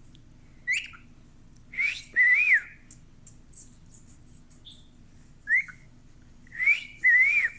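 Cockatiel whistling a two-note wolf whistle, a short rising note then a longer note that rises and falls, given twice, with single whistled notes and soft chirps in between.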